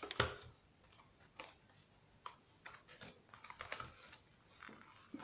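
Irregular light clicks and taps of a plastic craft border punch being handled and fitted back into its clear plastic blister pack and card, the loudest click right at the start.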